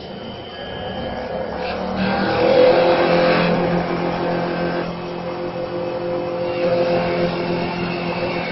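TJ1530 CNC wood-turning lathe cutting a spinning wooden blank: the tool rasping through the wood over a steady motor hum. The sound grows louder about two seconds in and then holds.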